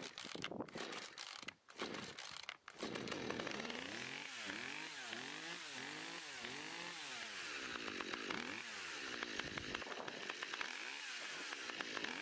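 Zenoah two-stroke top-handle chainsaw engine, cold-started on choke. It runs unevenly with two brief drop-outs for the first few seconds, then keeps running and revs up and down several times.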